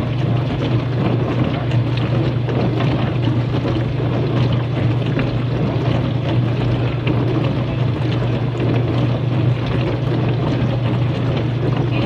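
A steady, low machine hum under a constant noisy rush, unchanging throughout.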